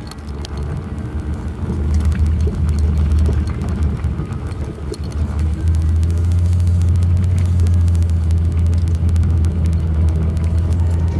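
Toyota Hilux pickup driving slowly over a rough dirt track, heard inside the cab: a steady low engine and road rumble, with many scattered clicks and crunches from the tyres on stones and debris.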